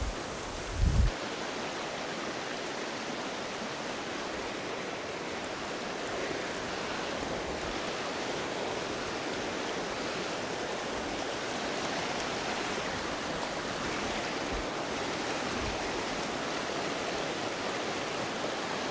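Steady rushing of a shallow mountain river running fast over rocks and riffles. A brief low thump comes about a second in.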